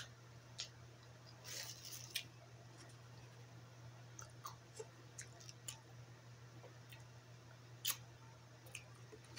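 Faint scattered clicks and crinkles of a clear plastic sushi clamshell being handled, over a steady low hum.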